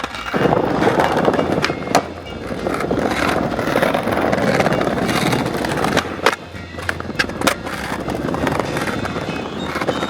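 Skateboard rolling, a steady rumbling rush with several sharp knocks of the board, under background music.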